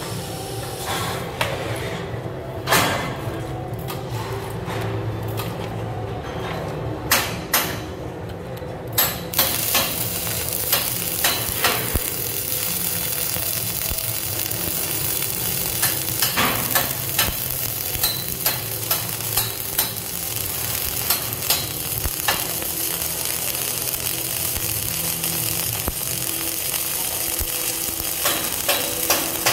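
Self-shielded flux-core arc welding with 5/64 in Lincoln NR-305 wire at about 36 volts: the arc's steady crackling sizzle, broken by sharp spatter pops. After a few short crackles, the continuous arc starts about nine seconds in.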